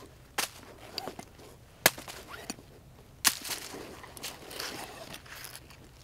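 Hands rummaging in a fabric hunting satchel and handling hard gear inside it: three sharp clicks about a second and a half apart, with softer ticks and fabric rustling between them.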